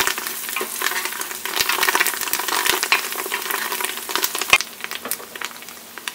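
Onions, whole spices and fresh coriander leaves sizzling in hot oil in a pressure cooker while being stirred, the utensil clicking and scraping against the pot. The stirring stops a little after halfway through and the sizzling carries on more quietly.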